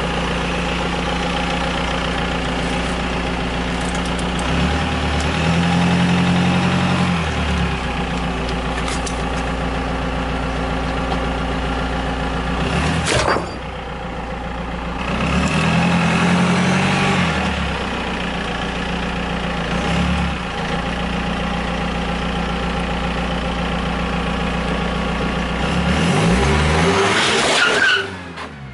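Car engine running close by, revving up three times, with one sharp crack about 13 seconds in as the tyre bears down on a large block of ice.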